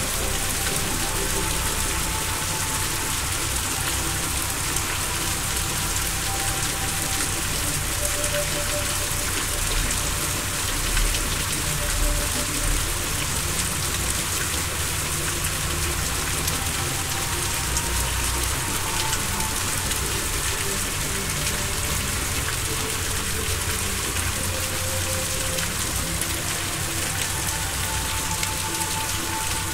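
Steady rain-like hiss from a relaxation background track, with faint, slow held tones of ambient music underneath.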